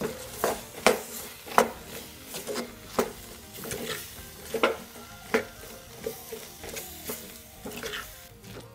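A wooden-handled spatula stirring chopped onions, carrots and banana peppers through a thick spiced paste in a clay pot, with irregular knocks and scrapes against the pot as the vegetables are turned over.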